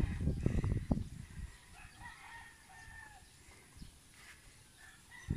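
A rooster crowing in the distance, after a low rumble of wind on the microphone in the first second or so.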